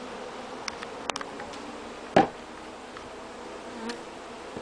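Steady buzzing of a newly installed package of honeybees. About two seconds in there is a single sharp knock of wood striking the hive top, the kind of bang that disturbs the bees inside, with a few light clicks of wood handling before it.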